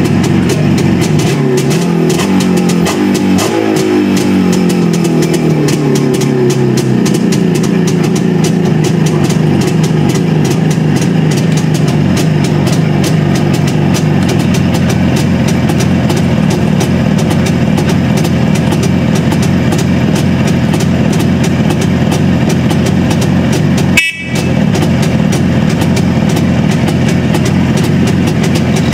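ČZ (Cezet) 472.5 motorcycle's 350 cc two-stroke twin engine, kick-started and catching about a second in. It is revved up and down for the first several seconds, then runs at a steady idle. The sound breaks off briefly about 24 seconds in.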